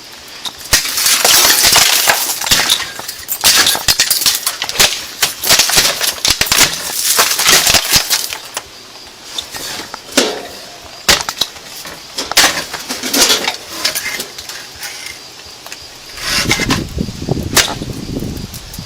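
Repeated hard knocks, cracks and clinks of glass and wood as a camper window is broken and pried at, dense for the first eight seconds or so and then sparser. A brief low rumble near the end.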